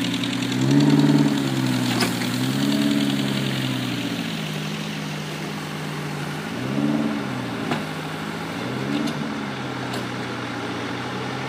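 Engine running steadily, rising in pitch and falling back four times as it is revved.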